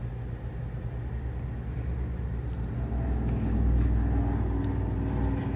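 A motor vehicle going by: a steady low engine rumble that swells about three seconds in, with an engine note rising over it, then eases near the end.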